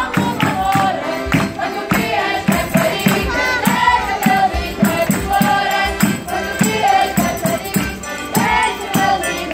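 Azorean folk group singing together in chorus as they march, over a steady beat of hand drum and tambourine.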